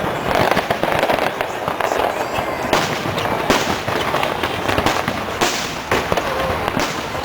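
Aerial fireworks going off in a dense barrage: continuous crackling with repeated sharp bangs every second or so.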